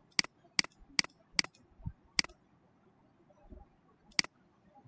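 Computer mouse button clicking six times: four quick clicks, a fifth after a short pause, and a sixth near the end.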